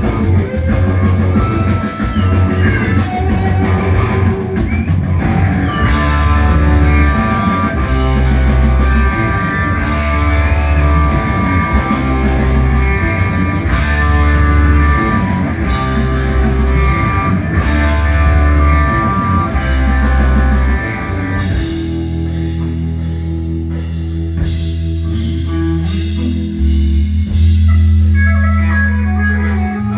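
Live rock band playing: electric guitars, bass guitar and drum kit. About twenty seconds in, the playing thins to long held bass notes and sustained chords, then builds again near the end.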